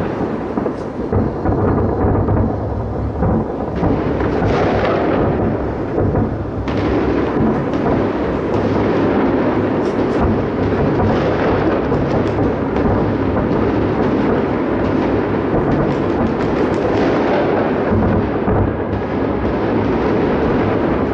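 Fireworks salute shells fired from salute launcher vehicles, many booms following so closely that they merge into one continuous thunder-like rumble, with sharper cracks here and there.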